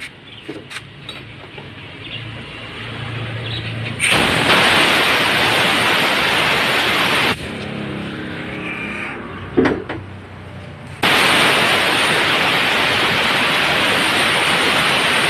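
Compressed air blowing out of the outlet valve of a 3HP, 120-litre Power Craft air compressor tank: two loud hissing blasts, the first about three seconds long and the second about four, each cut off suddenly as the valve is shut.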